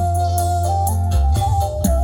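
Music played loud through a sound-system demo. It has a heavy bass line that changes note about a second in, a held keyboard-like melody note, and a steady hi-hat tick.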